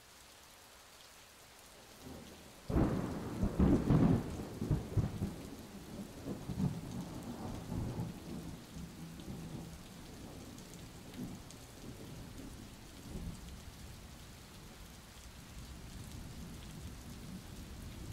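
Thunderstorm: steady rain hiss, with a loud crackling thunderclap about three seconds in. Rolling rumbles of thunder follow and die away under the rain.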